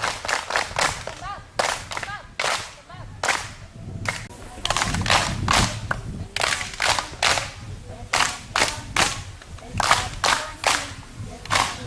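A group of children clapping their hands together in rhythmic runs of about three or four claps a second, as in a clapping game or song, with children's voices here and there.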